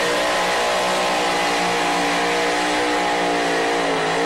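Supercharged engine of a two-wheel-drive pulling truck running at high revs under load while it drags the sled down the track. The pitch wavers slightly and dips briefly near the end before picking back up.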